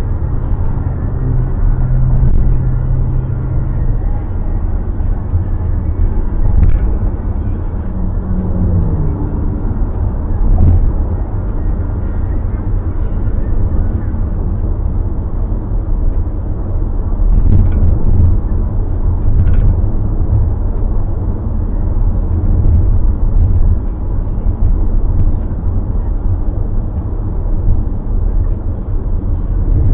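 Car on the move: a steady, low rumble of road and engine noise.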